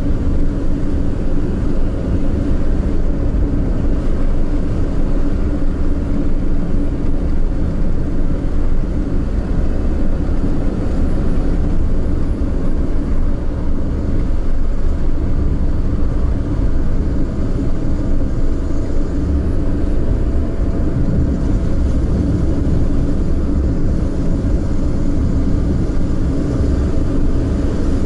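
Steady rumble of a car being driven: low road and tyre noise with a faint steady hum.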